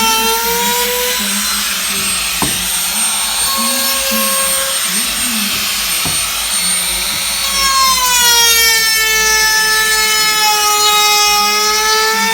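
Electric power tool motor running with a steady whine whose pitch dips and recovers as the load changes, with a sharp fall in pitch from about eight seconds in; two short knocks, about two and six seconds in.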